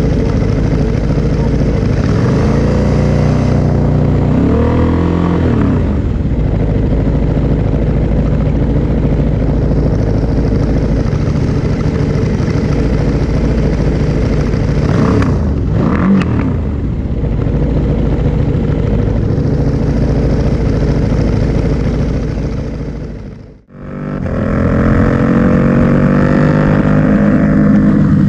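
KTM 790 Duke's parallel-twin engine running at a standstill through an Akrapovic silencer on a wrapped link pipe, revved briefly twice. After a sudden break near the end, the bike is under way with the engine accelerating, its pitch rising.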